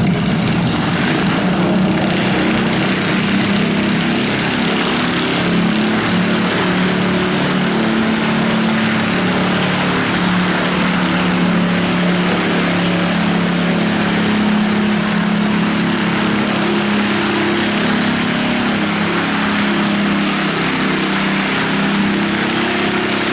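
Riding lawn mower's small engine running steadily at high throttle in a lawn mower pull, its pitch wavering slightly up and down.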